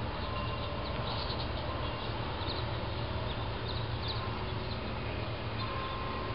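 Steady outdoor background noise with a low rumble, and scattered short, faint high chirps throughout.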